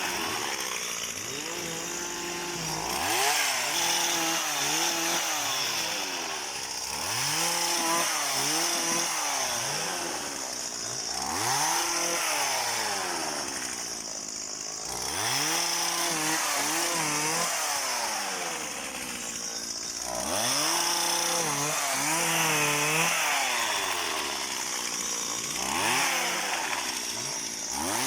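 Small petrol engine of a motorised palm-pruning tool, revved up and dropped back again and again as it cuts oil palm fronds.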